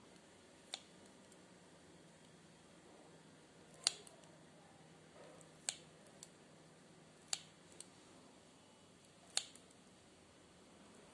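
Kitchen scissors snipping through sticky muah chee in a glass bowl. Sharp clicks come every second or two, five loud ones and a few lighter ones.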